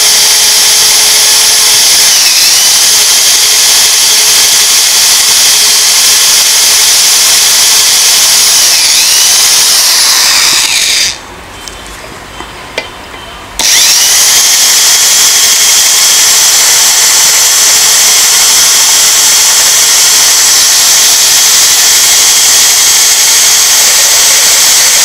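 Electric drill boring a small pilot hole into a broken bolt in the end of a washing machine gearbox shaft. The drill runs steadily with its pitch dipping briefly a few times, stops for about two and a half seconds around the middle, then starts again and runs on.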